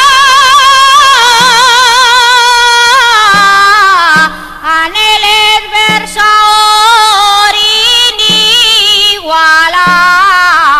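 Music: a high voice singing long held notes with a wide vibrato. About three seconds in it slides down and breaks into shorter phrases with brief pauses, over a faint low accompaniment.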